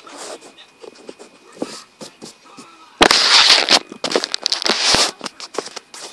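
Crackling, rustling handling noise close to the microphone, with scattered clicks. It swells into a loud burst from about three to five seconds in.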